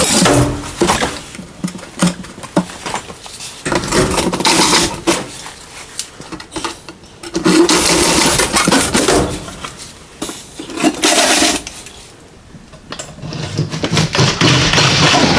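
Cordless circular saw cutting into the garage wall in several short bursts, the motor running up with each cut and stopping in between.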